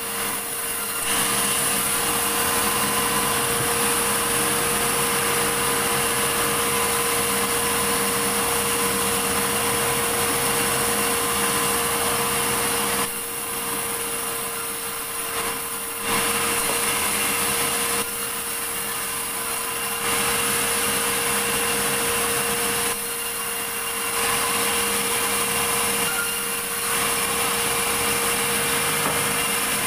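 Sawmill saw running and cutting through a large medang log: a steady machine tone under the noise of the cut. The cutting noise eases back briefly four times in the second half, between stretches of cutting.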